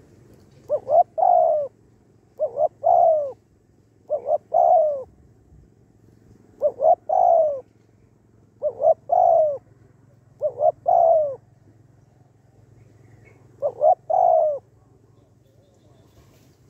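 Spotted dove cooing: seven phrases a couple of seconds apart, each two short notes followed by a longer, drawn-out note.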